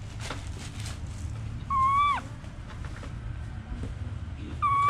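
Infant macaque giving two clear, steady-pitched coo calls: the first about two seconds in, ending in a quick drop in pitch, the second starting near the end.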